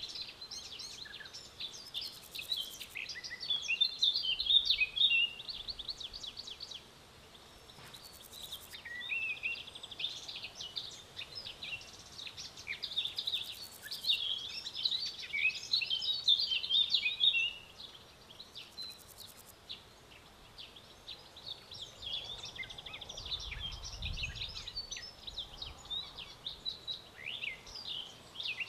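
Many small birds chirping and twittering in overlapping bouts, with short pauses between them. A brief high, buzzing insect-like trill comes every few seconds.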